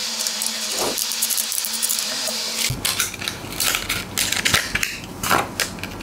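A small screwdriver working the screws of a motherboard's metal M.2 heatsink, with a steady scraping hiss. About two and a half seconds in, this gives way to sharp clicks and crackles of a clear plastic blister pack being handled to take out an M.2 NVMe SSD.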